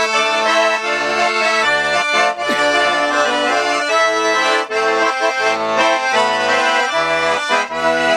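Russian garmon (button accordion) playing an instrumental interlude between sung verses: a melody over held chords, with the low bass notes pumping in a steady rhythm.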